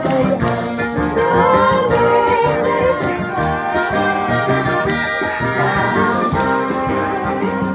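Live wind band playing a tune, with brass to the fore.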